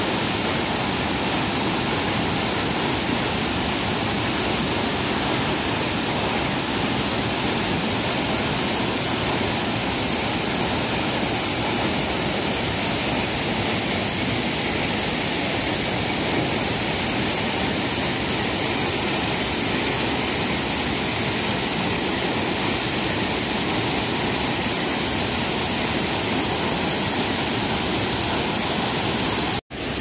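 Steady rush of a waterfall pouring down onto boulders and into a pool. It cuts off abruptly just before the end.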